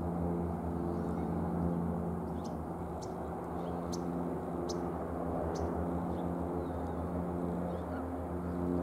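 Steady low mechanical hum made of several held pitches, with a handful of short high bird chirps between about two and six seconds in.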